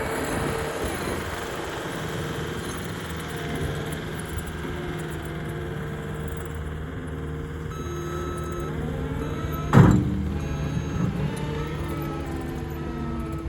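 Diesel engine of heavy earthmoving equipment running steadily while grading dirt. A single sharp clank comes a little under ten seconds in.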